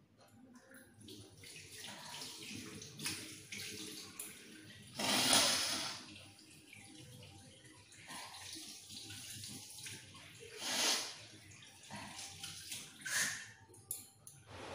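Water running into a washbasin, a steady rush broken by three louder noisy bursts: the loudest about five seconds in, lasting about a second, and shorter ones near eleven and thirteen seconds.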